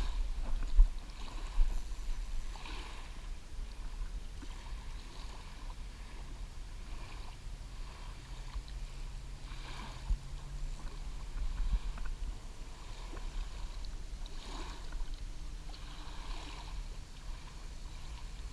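Small waves lapping at a lake shore under a steady low rumble on the camera microphone, with a few sharp knocks. A faint steady hum comes in about eight seconds in.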